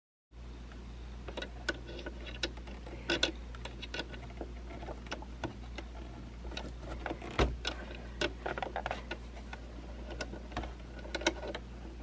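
Scattered small clicks and taps of a screwdriver and metal and plastic parts being handled at a sewing machine's needle plate and presser foot, with one sharper click about seven seconds in, over a steady low hum.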